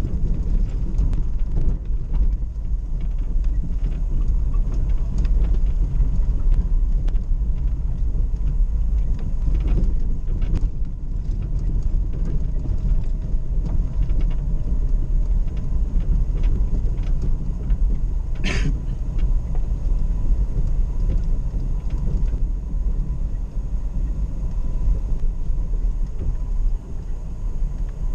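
Off-road 4x4 driving along a rough grass track, heard from inside the cab: a steady low engine and drivetrain rumble with small knocks and rattles from the bumps. One sharper knock comes about two-thirds of the way through.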